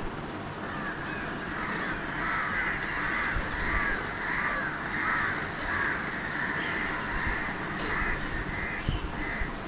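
A bird giving a long run of harsh, squawking calls, about two a second, over a steady low background rumble.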